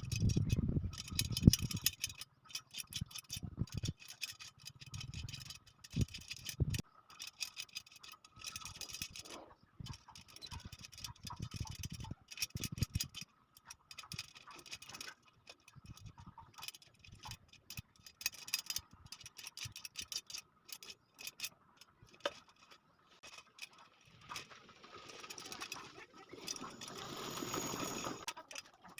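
Steel spokes clicking and tapping against a motorcycle's wheel rim and drum hub as they are fitted, a run of irregular light metallic ticks with a few heavier knocks in the first seconds.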